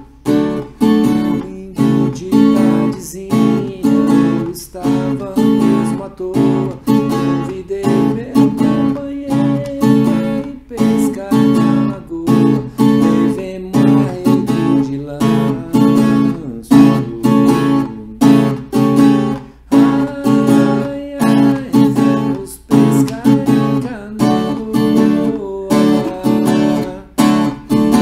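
Viola caipira, the ten-string Brazilian folk guitar, strummed in a cururu rhythm, switching between A7 and D chords, with sharp strokes repeating evenly throughout.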